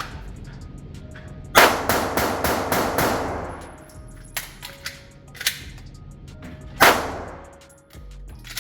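A 9mm Polymer80 Glock 19-pattern pistol firing a quick string of about six shots, roughly three or four a second, then one more shot a few seconds later.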